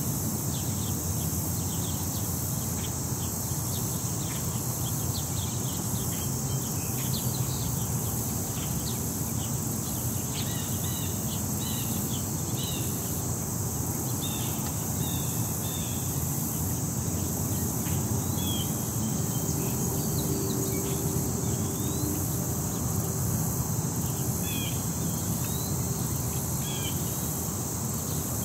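City-park ambience: a steady high chorus of insects, scattered short bird chirps, and a low steady rumble of city traffic underneath.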